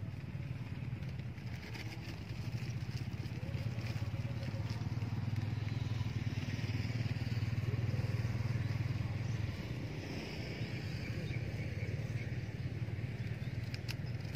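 A small engine running steadily with a low, rapidly pulsing hum that swells louder toward the middle and then eases off.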